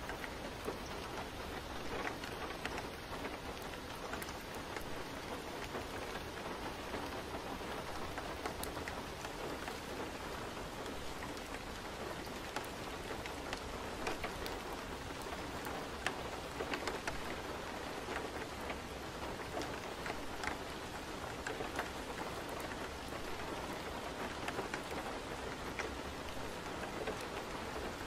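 Steady rain falling, an even hiss dotted with scattered drop ticks.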